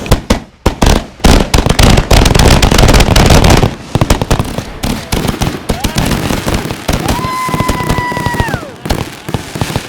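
Consumer firework mortar shells going off in a mass barrage: a dense, overlapping run of bangs that is loudest in the first few seconds, then thins to scattered booms and crackle. A long, high, held tone sounds about seven seconds in and bends down as it ends.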